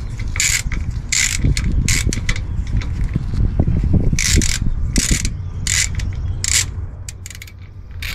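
Hand ratchet clicking on repeated back-swings, about one and a half strokes a second, as it runs up a bolt on the sway bar's axle bracket. A steady low rumble lies underneath.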